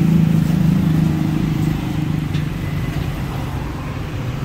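A 7.5 HP single-cylinder petrol engine running steadily, turning a stainless-steel disk flour mill through its belt drive. The sound eases a little about two seconds in.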